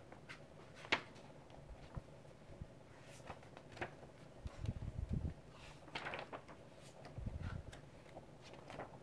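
Pages of a large rulebook being turned by hand: faint paper rustles and slides with a few short clicks, and a couple of soft handling bumps.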